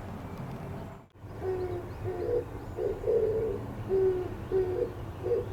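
Oriental turtle dove cooing: its low, hooting song in a run of repeated phrases, starting about a second and a half in after a brief dropout.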